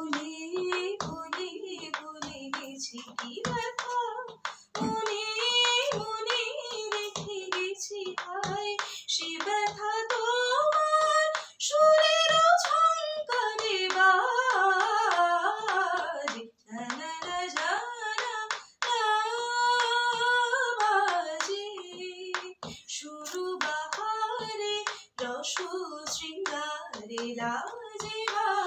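A woman singing a song unaccompanied, her voice held and gliding in long melodic phrases, with hand claps keeping time.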